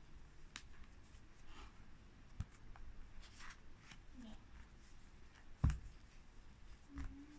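Pages of a scanimation picture book being turned by hand: soft paper rustling and light clicks as the pages are handled, with one louder knock about five and a half seconds in.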